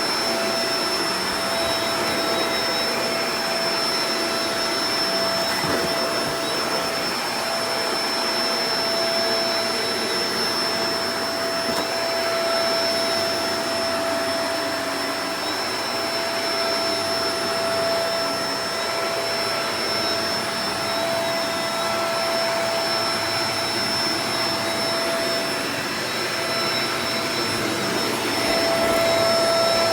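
Shark Professional Powered Lift-Away DLX (NV586) upright vacuum cleaner running steadily, with a steady whine over the rush of air, slightly louder near the end.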